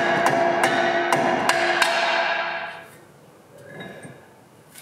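A series of sharp blows knocking a front brake disc that is stuck to its hub, the disc ringing after each strike: about six irregular strikes in the first two seconds, the ringing dying away by about three seconds in.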